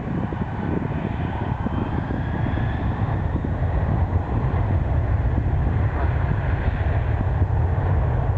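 Boeing 747-400's four turbofan engines at takeoff thrust: a deep rumble that slowly grows louder, with a faint high engine whine above it.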